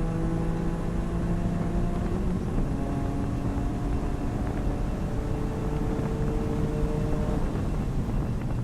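Toyota GR Yaris's turbocharged 1.6-litre three-cylinder engine pulling under load, its pitch climbing slowly, dropping at a gear change about two seconds in, then climbing again and dropping near the end. A steady hiss of road noise runs underneath.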